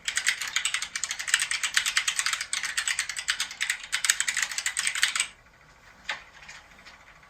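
Fast typing on a QWERTY computer keyboard, a rapid run of keystroke clicks that stops about five seconds in, followed by a single faint click.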